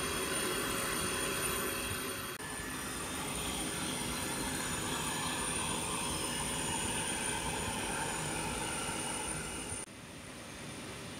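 Steady turbine whine and rush of a parked Lockheed L-1011 TriStar's auxiliary power unit running, with a high steady tone over it. The sound shifts abruptly about two and a half seconds in and drops in level near the end.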